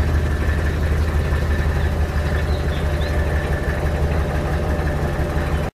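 Oldsmobile 350 diesel V8 idling steadily with a fast, even low pulse, cutting off abruptly near the end.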